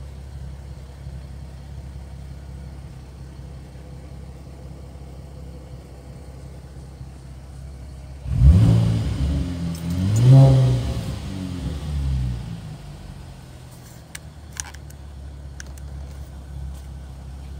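Holden Commodore's 3.6 litre V6 idling steadily, heard from inside the cabin, then revved in three quick blips about eight seconds in before dropping back to idle.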